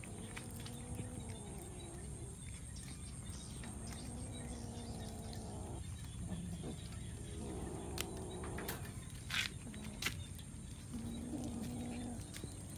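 Domestic cats meowing at feeding time: four or five drawn-out meows in turn. About two-thirds of the way through come a few sharp taps, the loudest sounds here.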